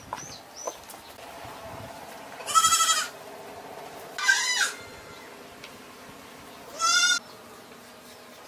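Goat bleating three times, short high-pitched calls about two seconds apart.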